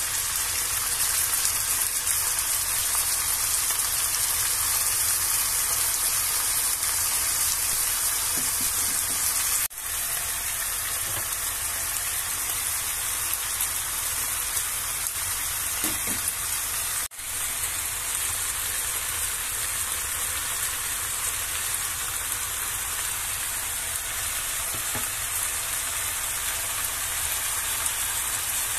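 Cabbage, carrots and liquid sizzling steadily in a wok beneath a pile of rice vermicelli noodles. The hiss is continuous and high-pitched, broken by two brief dropouts about ten and seventeen seconds in.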